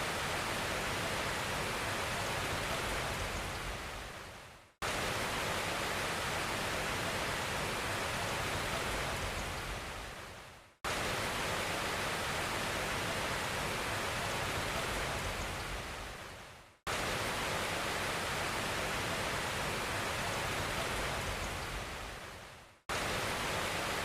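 Steady rushing of a waterfall, fading out and cutting back in abruptly about every six seconds as a short clip of it repeats.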